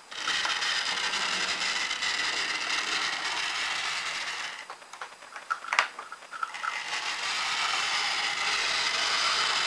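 OO gauge model locomotive running along the track, its small electric motor and wheels whirring steadily. The whirring stops about four and a half seconds in, a sharp click comes during the pause, and the whirring starts again about two seconds later, cutting off at the end.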